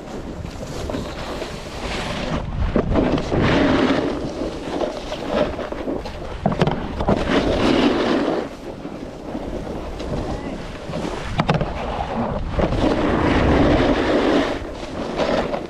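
Snowboard sliding and scraping over snow with wind rushing over the microphone, the scrape swelling three times as the board turns, with a couple of sharp knocks in between.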